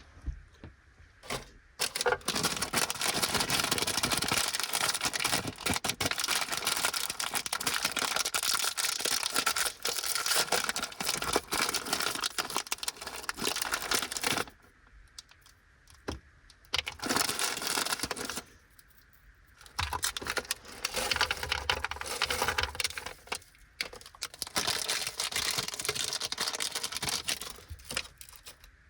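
Crinkly plastic snack packets of a Fujiya Anpanman Korokoro Biscuit Bolo four-pack being handled, crinkled and torn open, in long stretches of crackling with short pauses between.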